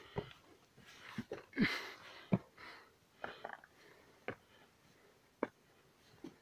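Hikers' shoes scuffing and knocking on dry rock while scrambling up a steep gully: a handful of sharp knocks at uneven intervals, with a brief rustling rush about one and a half seconds in.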